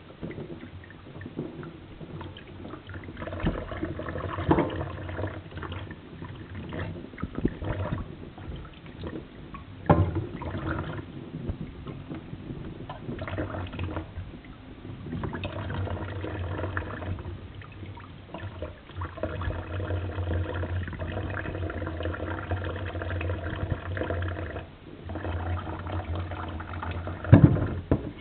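Kitchen tap running into a stainless steel sink as raw chicken pieces are rinsed under the stream, with occasional knocks against the sink and a sharp, loud knock near the end.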